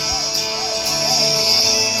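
Music with guitar playing, held notes with a slight wavering pitch.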